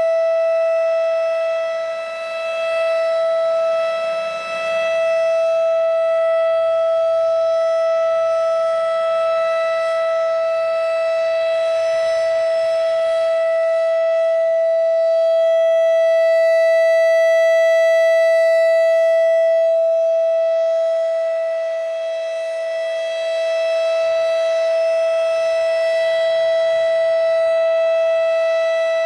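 RSH-10 Thunderbeam outdoor warning siren sounding a steady alert tone at one pitch with strong overtones. The loudness swells and dips slowly, with shallow dips about two and four seconds in and again a few seconds before the end.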